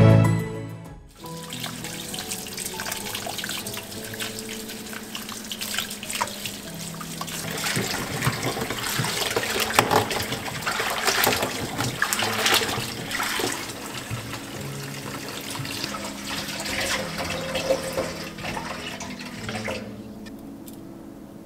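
Tap water running into a stainless steel bowl and splashing as hands rub and rinse ponytail radishes to wash off soil, with soft background music underneath. The water stops near the end.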